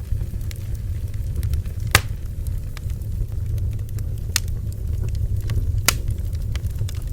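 Bonfire burning: a steady low rumble with scattered sharp crackles and pops from the burning wood, the loudest pops about two seconds in, after four seconds and near six seconds.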